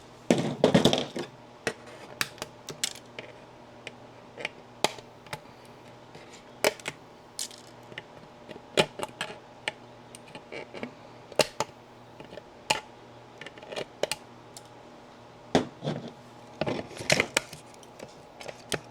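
Irregular small clicks and snaps of 3D-printed plastic as tree supports are broken off the printed pieces, with denser bursts of crackling about a second in and again near the end.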